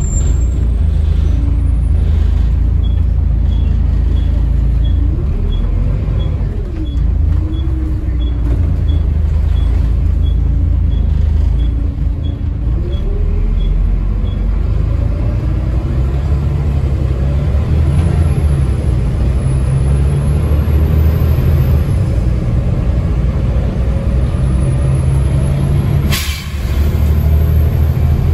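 Volvo D7C 7.3-litre diesel of a Volvo B7TL double-decker bus pulling through its gears, heard from the upper deck, with a deep rumble and engine pitch rising and falling. A regular ticking, about one and a half a second, runs from about three seconds in to about fourteen seconds, and from about sixteen seconds a whine from the ZF Ecomat automatic gearbox climbs in pitch as the bus gathers speed. A brief sharp noise comes near the end.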